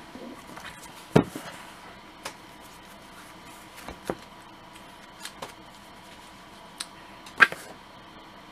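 Comic books being handled on a cutting mat: a few sharp taps as they are picked up and set down, the loudest about a second in and another near the end, with faint papery rustling between.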